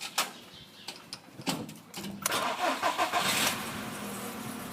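Car engine cranked by the starter and catching about two seconds in, then settling into a steady idle; two short clicks come before it.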